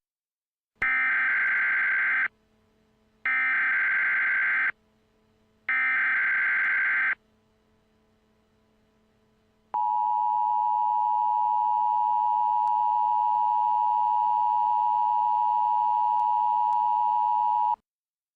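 Emergency Alert System signal. It begins with three equal bursts of SAME digital header data tones, each about a second and a half long with about a second between them. After a short pause comes the EAS attention tone, a steady two-tone signal held for about eight seconds that cuts off abruptly.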